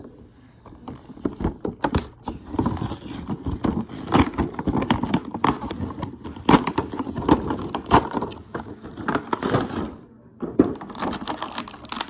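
Action-figure packaging being opened: cardboard box and plastic tray crinkling and crackling in quick, irregular bursts, with a short lull about ten seconds in.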